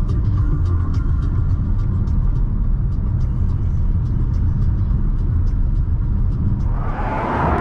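Chery Tiggo 4 Pro driving, heard inside the cabin: a steady low road and engine rumble with faint music. Near the end a rushing hiss swells up.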